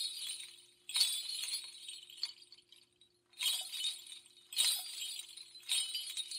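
A series of bright, glassy chiming clinks, five strikes at uneven intervals, each ringing out briefly, over a faint steady hum.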